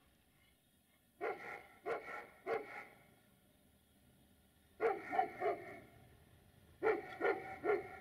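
A dog barking in three runs of three quick barks, the runs about two seconds apart.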